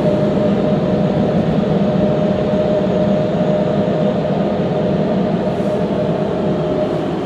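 PDQ Laserwash 4000 car wash dryer blowers running with a steady roar and one steady tone running through it, heard from inside the car.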